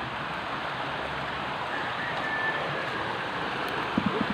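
Steady rush of a stream's running water.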